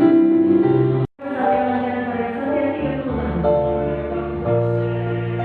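Choir singing held, sustained chords, with a sudden split-second break in the sound about a second in.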